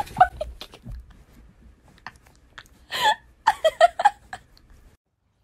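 A few light clatters as a fabric curtain comes down near the start, then a person laughing in short bursts about three seconds in.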